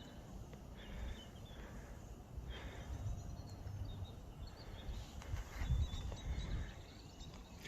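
Faint outdoor ambience: a low rumble that swells and fades, with a few faint high chirps.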